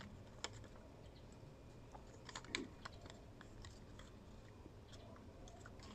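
Faint, scattered light clicks and crinkles of a paper seal sticker being peeled off a plastic earbud charging case and the case being handled in the fingers. The sharpest clicks come about half a second in and around two and a half seconds in.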